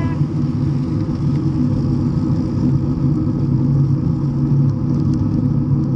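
Wind buffeting the microphone of a camera on a moving road bike, with road noise from the tyres: a loud, steady low rumble.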